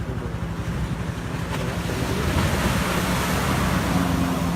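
Heavy sea surf: a wave surges in and breaks, the rush swelling about halfway through and easing near the end, over a low steady hum.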